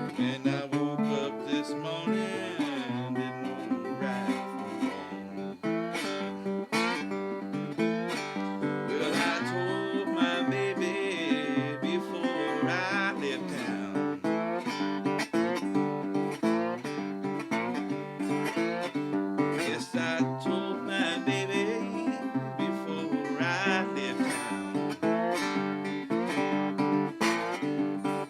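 Acoustic guitar played blues-style with a slide: picked notes and chords, with notes gliding up and down in pitch under the slide.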